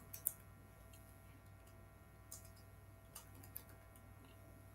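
Faint keystrokes on a computer keyboard: a few scattered sharp clicks, the loudest just after the start, over a low steady hum.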